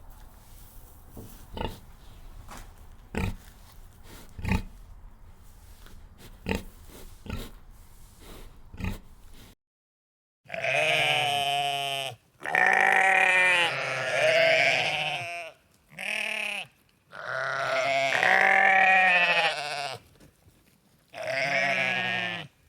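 Short pig grunts about every second or so, then after a sudden cut, sheep bleating: five long, wavering bleats, much louder than the grunts.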